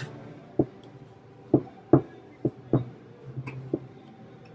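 About half a dozen soft, irregular taps and knocks as a paintbrush and hands work on a paper plate and a wooden panel on a tabletop.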